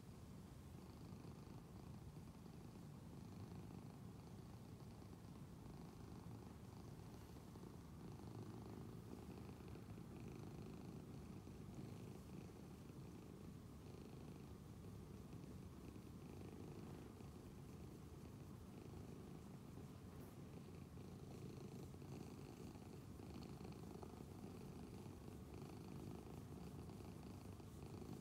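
Domestic cat purring softly and steadily while being stroked, a sign it is relaxed and content.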